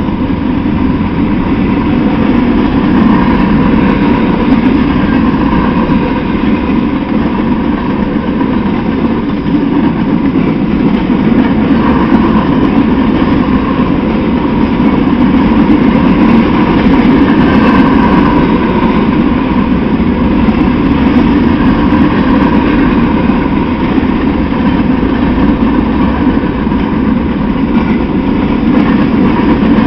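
Freight train of open-top cars rolling past close by, a loud steady rumble of steel wheels on the rails that keeps on without a break.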